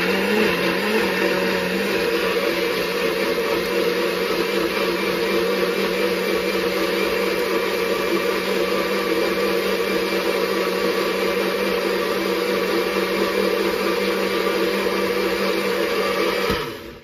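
Small personal blender running steadily, puréeing onion, garlic, apple, chilli paste and soy sauce into a marinade. Its pitch wavers a little in the first couple of seconds, then holds steady, and the motor cuts off near the end.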